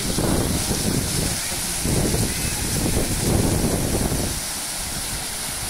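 Fountain jets splashing into a stone basin, a steady hissing rush of water. Wind buffets the microphone with low rumbling gusts for about the first four seconds, then eases.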